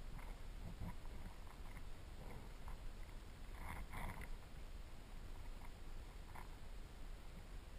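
Underwater river ambience heard through a submerged camera: a low, steady rumble of current with faint scattered clicks and crackles, a short cluster of them about halfway through.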